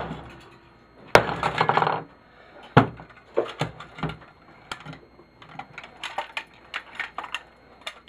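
Sharp blows struck on a cast aluminium part of a garage door opener to break it loose, four of them loud, one followed by a rattling clatter. Lighter, quicker taps and metallic clinks follow in the second half.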